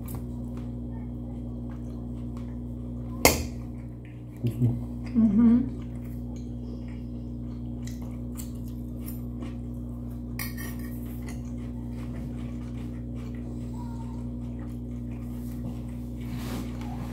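Cutlery clinking and tapping on plates while eating, with one sharp loud clink about three seconds in, over a steady low hum.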